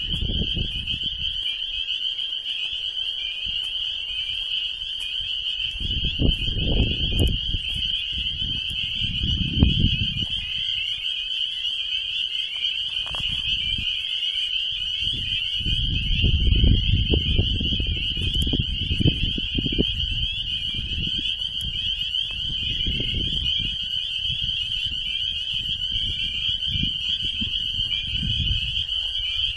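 Dense chorus of many frogs calling from a pool of water, a steady high-pitched shrill of overlapping peeps. Wind buffets the microphone with low rumbles several times.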